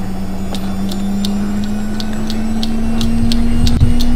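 Washing-machine sound effect: a steady motor hum that slowly rises in pitch and grows louder, with a light ticking about three times a second.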